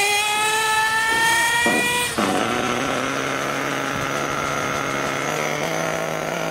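Radio-controlled racing car's motor running at high revs, a high-pitched buzzing whine that rises slightly in pitch. About two seconds in it stops abruptly and a lower, steady drone takes over.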